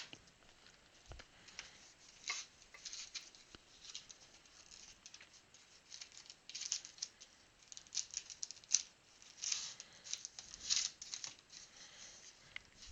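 Rustling and crinkling of trading-card packaging as a Prizm mini chrome hanger box is opened and its foil packs are pulled out. The sound comes in faint, irregular bursts, busier in the second half.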